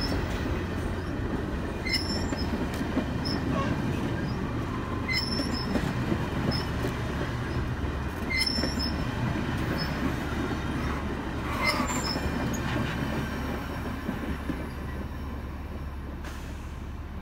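Passenger cars of the Canadian Pacific Holiday Train rolling past, their steel wheels rumbling steadily on the rails, with brief high squeaks and clicks about every three seconds. The sound fades over the last few seconds as the end of the train moves away.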